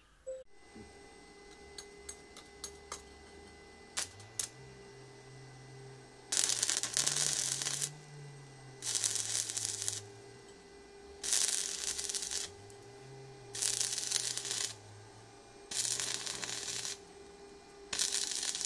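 Stick (manual arc) welding: the electrode's arc crackles in six short runs of about a second each, a couple of seconds apart, with a steady hum in between.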